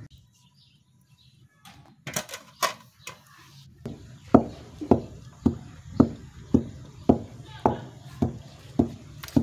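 Wooden pestle pounding grain in a wooden mortar: a few scattered knocks, then from about four seconds in a steady run of thuds, about two a second.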